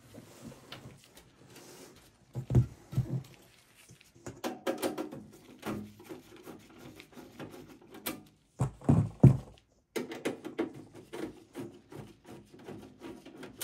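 A Phillips screwdriver working the rear screws of a Dell Inspiron 3671 desktop case: small clicks and rattles of the driver and screws against the metal case, broken by several knocks and thumps. The loudest knocks and thumps come about three seconds in and again about nine seconds in.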